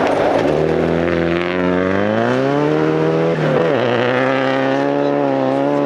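2007 Subaru Impreza WRX STI rally car's turbocharged flat-four engine accelerating hard. The revs climb for about three seconds, drop sharply at an upshift, then hold nearly steady under load.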